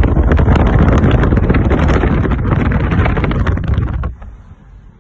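Wind buffeting the microphone: a loud, crackling rumble that cuts off suddenly about four seconds in.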